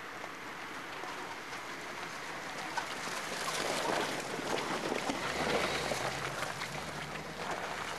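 An off-road racing vehicle's engine, growing louder toward the middle and easing off near the end, under a dense crackle.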